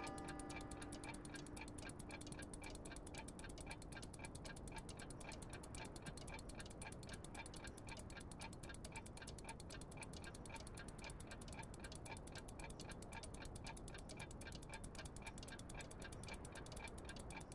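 Many mechanical clocks ticking together, their ticks overlapping into a fast, steady patter. A low held note fades out over the first few seconds.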